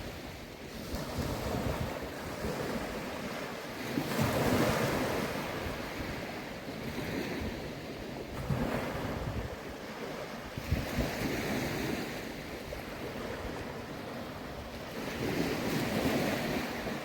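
Small waves washing onto a sandy beach, swelling and fading every three to four seconds, with wind gusting on the microphone.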